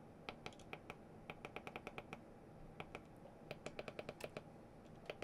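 Faint clicking from the controls of a PDVS2 Mini voltage reference as its output setting is stepped, with a few single clicks and two quick runs of about eight to ten clicks each.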